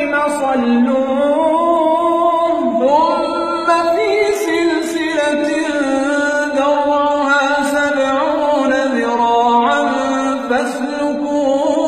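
Unaccompanied male Quran recitation in a slow, melodic style: long held notes that glide and ornament between pitches, with no instruments.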